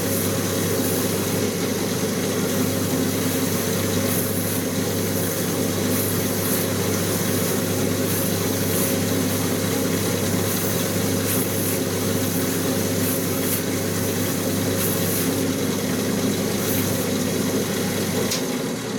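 Shoe finishing machine's rotating brush wheel running steadily, with a freshly stained leather outsole held against it to buff off the excess stain. Near the end the motor's low hum cuts out and the sound starts to fade as the wheels run down.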